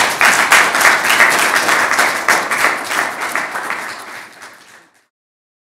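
Audience applauding, a dense patter of many hands clapping that fades over its last second or so and then cuts off abruptly near the end.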